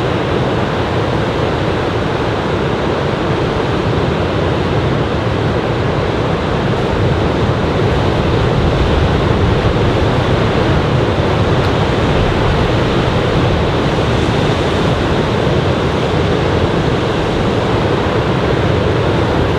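Ocean surf from a typhoon swell breaking and washing up the beach: a steady, loud rushing wash that swells slightly about halfway through.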